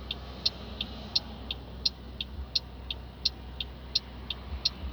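Car turn-signal indicator ticking steadily, about three clicks a second in alternating louder and softer tick-tock pairs, over the low rumble of the car waiting at a junction in the cabin.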